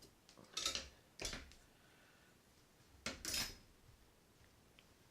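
Small metal parts of a spinning reel clinking and scraping as they are handled and worked at by hand: three short rattles, one just over half a second in, one a second in, and a longer one about three seconds in.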